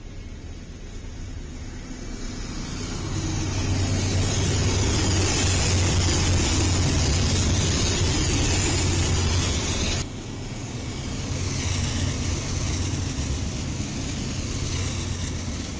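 Diesel freight locomotives passing close by: a deep engine rumble under a hiss of wheels on rail, building as the train comes up. The sound drops suddenly about ten seconds in, then builds again as more locomotives go past.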